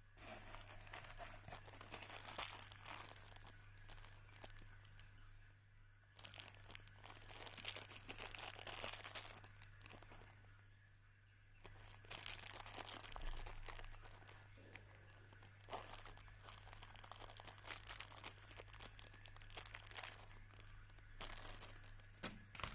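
Packaging being crinkled and unwrapped by hand during an unboxing. It comes in several bouts of crackling with short pauses between.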